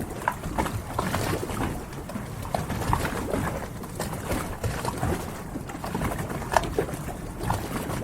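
Harbor ambience: a steady low rumble with short bird calls scattered through it. The loudest call comes about six and a half seconds in.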